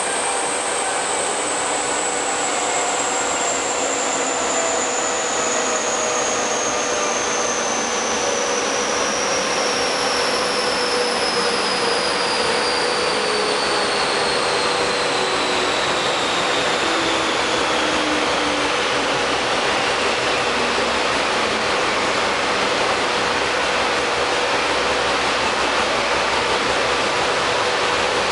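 Chassis dynamometer rollers and a Corvette Z06's rear wheels and driveline coasting down after a power run, with a whine that falls slowly in pitch as they lose speed, over a loud steady rush of noise.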